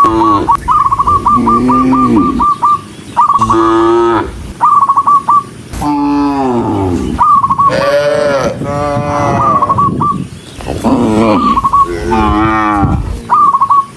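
Several cattle mooing loudly again and again, their long calls overlapping as the herd walks. Runs of quick, short, high notes, about five a second, recur between the moos.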